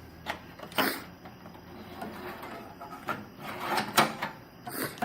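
A handful of sharp plastic clicks and knocks as drive trays are handled and set into a PC case's drive cage. The strongest come about a second in and about four seconds in.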